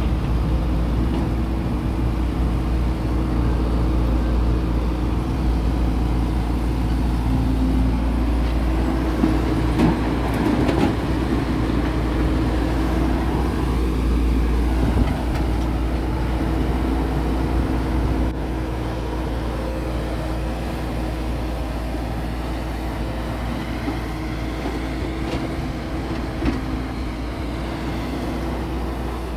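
Diesel engine of a SANY SY140C crawler excavator running steadily as it digs and loads mud, working harder in the first half and a little quieter after the middle, with a few short knocks. Farm tractor engines run alongside it.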